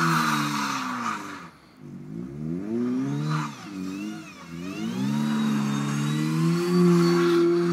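Honda GSR 1.8-litre DOHC VTEC four-cylinder engine in an Integra, revving hard as the car spins donuts on snow. The revs fall away about a second and a half in, rise and fall a few times, then hold high near the end.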